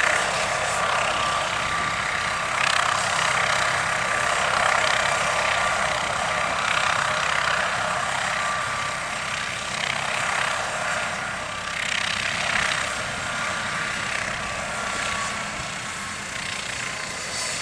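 MD 902 Explorer helicopter running on the ground with its main rotor turning: a steady rush of rotor and turbine noise with a thin, high turbine whine and slow swells in loudness.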